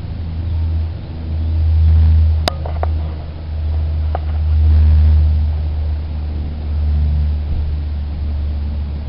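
A loud low rumble that swells and fades several times, with a few sharp clicks about two and a half and four seconds in, each followed by a brief ring.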